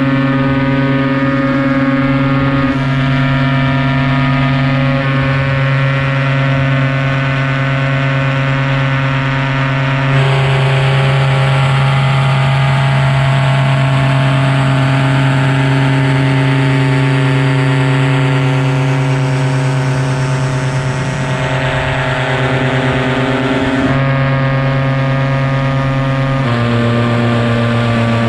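Paramotor trike's engine and propeller running steadily in flight, its pitch shifting a few times, with more rushing air through the middle stretch.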